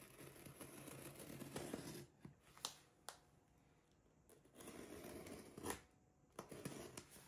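Scissors cutting through packing tape on a cardboard shipping box: quiet rasping slices in three stretches, with a few sharp clicks of the blades between them.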